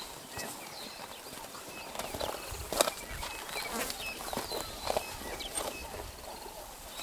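White rhinos cropping grass: irregular tearing and crunching bites as they pull up mouthfuls, the sharpest one about three seconds in. A few short bird chirps are scattered through it.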